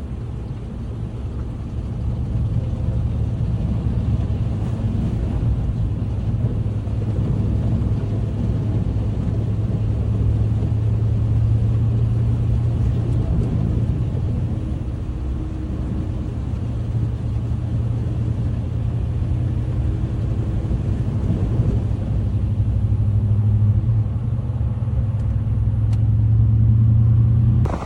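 A car driving at a steady speed: a steady low engine and road drone, with faint wavering engine tones above it.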